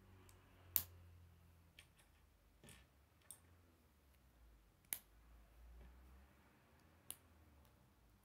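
K'nex plastic pieces snapping together as a model is assembled by hand: three sharp clicks spread over several seconds, with a few fainter clicks and taps between them.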